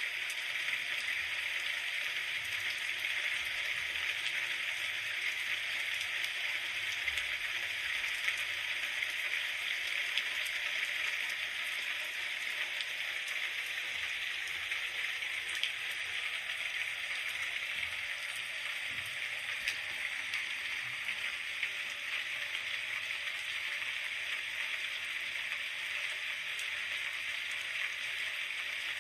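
Steady rainfall: an even hiss of rain with faint scattered drop ticks, unchanging throughout.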